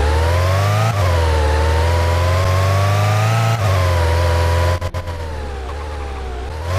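A car making a loud whine that glides up and down in pitch over a steady low hum. It breaks off briefly and runs quieter about five seconds in, then rises again near the end.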